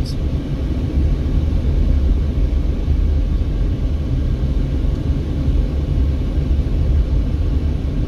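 Steady low rumble of a Mercedes-Benz car driving at low speed, heard from inside the cabin: engine and tyre noise on the road.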